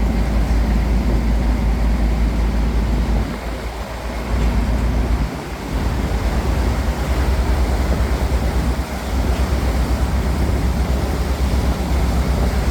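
Cruise boat underway: a steady low rumble with wind buffeting the microphone, easing briefly about four seconds in.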